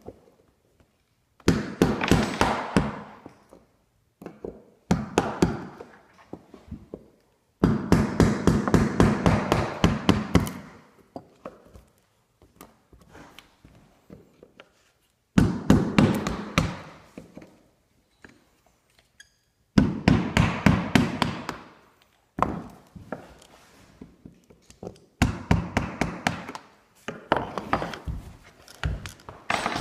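Hammer tapping a metal punch held against a wooden floor, in runs of quick strikes, about seven a second, with short pauses between the runs.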